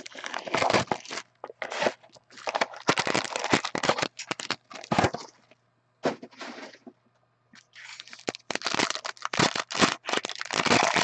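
Plastic wrapping crinkling and crackling as it is torn open by hand, in bursts with short pauses: first a sealed trading-card box, then, from about eight seconds in, a foil pack of cards ripped open.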